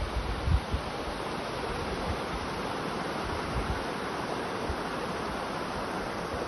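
Heavy rain falling steadily, a dense even hiss. A few low bumps near the start, like wind buffeting the microphone.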